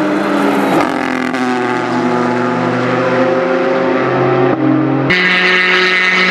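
Ford GT GTE's twin-turbo 3.5-litre V6 race engine running hard as the car passes, its pitch gliding slowly upward. The sound changes abruptly about a second in and again near the end.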